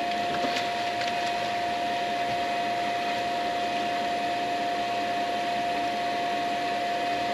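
Steady whirring hum of a running shop machine, with a constant high whine and a couple of faint clicks in the first second or so.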